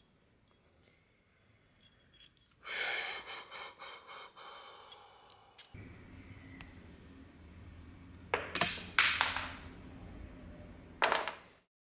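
Handling noise: rustles and scrapes of fingers turning and flexing a small strip of old iron, with a few light clicks. A low steady hum comes in about halfway, and there are louder rustles near the end.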